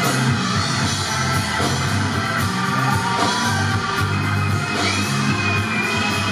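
Anatolian rock band playing live with drum kit, bass and guitar. A high note slides up and is held toward the end.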